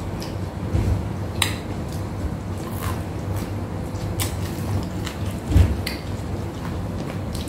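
Close-up eating sounds of crispy deep-fried tilapia and rice eaten by hand: scattered crunches, mouth smacks and light clicks of plates, over a steady low hum.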